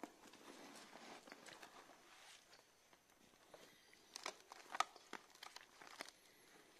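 Faint handling of a briefcase as it is opened and its notebooks and laptop moved: soft rustling at first, then a few light clicks and knocks a few seconds in.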